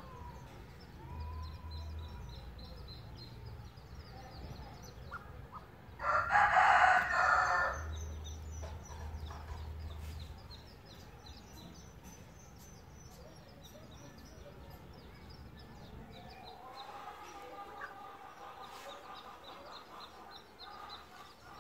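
A rooster crows once, loud and lasting under two seconds, about six seconds in, and a fainter crow follows about ten seconds later. Throughout, domestic ducklings give short, faint, high peeps.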